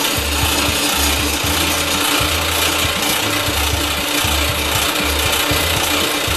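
Metal lathe (South Bend 9-inch) running under power, its brazed carbide tool cutting steel with a loud, steady hiss. A low hum comes and goes irregularly underneath.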